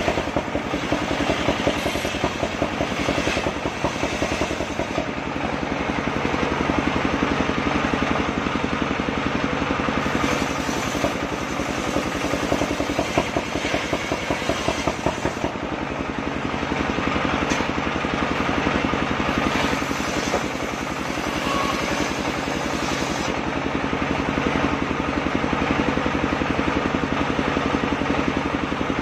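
Engine of a circular saw machine running steadily at an even speed.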